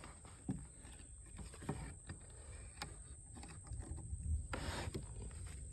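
Faint, scattered knocks and shuffling as a heavy wooden timber is carried and handled, over a low background rumble, with a slightly louder rustle about four and a half seconds in.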